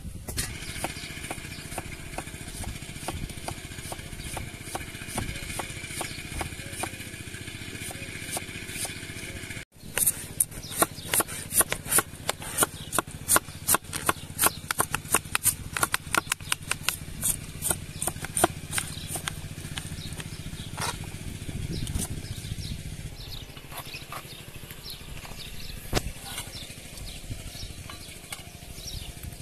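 A large kitchen knife chopping red cabbage on a wooden board: quick sharp chops, about five a second, starting about ten seconds in and thinning out after about twenty, over a steady low background drone.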